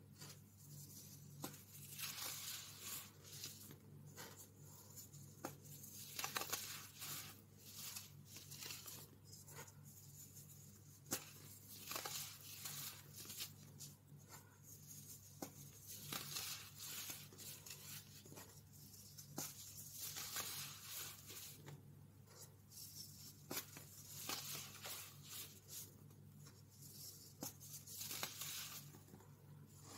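Hands pressing and raking through loose baking soda powder, giving soft crunchy hisses with many small sharp crackles. Near the end, molded baking soda pieces are crushed and crumbled between the fingers.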